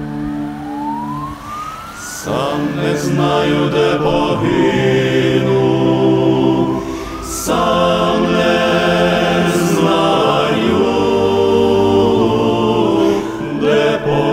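A vehicle siren wailing slowly up and down, about one rise and fall every five and a half seconds, under a mournful song with singing voices that swells in about two seconds in and again about halfway through.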